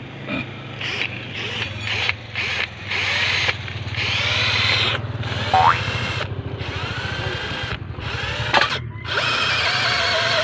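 Power drill boring a tapping hole through a saddle clamp into a plastic water pipe, run in repeated short bursts with its speed rising and falling.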